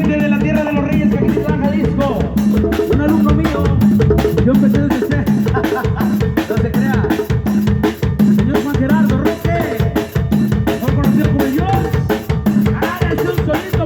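Live band playing a cumbia medley, with drums and percussion keeping a fast, steady beat under pitched instruments.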